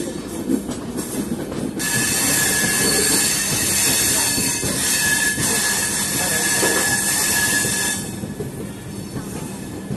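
Passenger train at a station: a loud hiss with a thin, steady high squeal starts suddenly about two seconds in and cuts off about eight seconds in, over a steady low hum.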